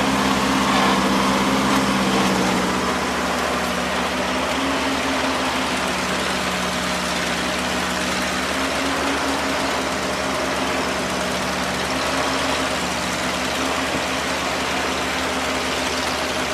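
Off-road vehicle's engine running steadily at low revs, slightly louder for the first couple of seconds, then settling.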